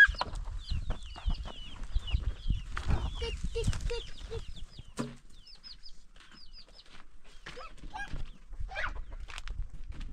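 Chickens clucking, among many short high chirping calls and scattered knocks.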